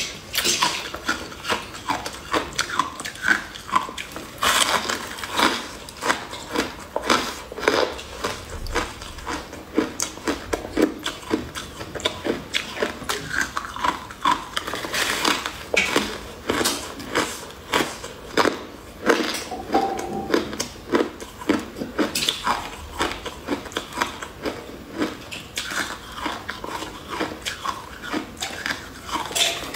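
Biting and chewing into a frosted block of purple ice: repeated crisp crunches and crackles through the whole stretch.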